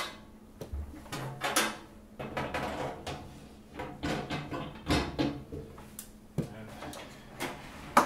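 Irregular knocks and clatter as the glass turntable plate is seated inside a Panasonic microwave and the unit is handled, ending in one sharp knock.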